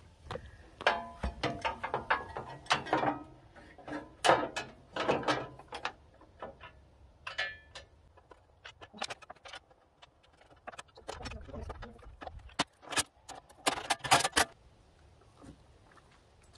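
Metal parts of a Norwood HD36 bandsaw mill's sawhead clinking and clanking as they are handled and fitted by hand: an irregular run of sharp clicks, some briefly ringing. The clicks bunch together at the start and again near the end.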